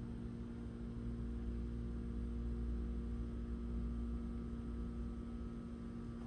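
Steady background hum: a constant low rumble with a few held tones on top, unchanging throughout.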